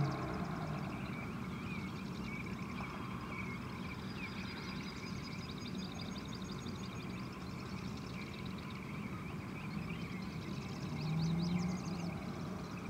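Roadside ambience with birds chirping. About eleven seconds in, a distant engine note swells as a car approaches: the 2012 Volkswagen GTI's turbocharged four-cylinder through a catless downpipe and cat-back exhaust.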